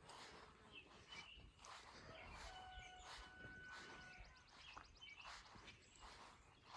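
Faint birdsong: short chirps over and over, with a steady held note for about two seconds in the middle and a quick trill near its end.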